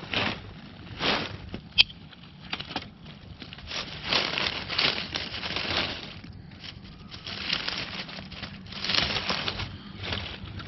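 Dry leaf litter rustling and crunching close to the microphone in several bursts as a hand reaches in with a knife to cut a mushroom at the stem. There is a single sharp click about two seconds in.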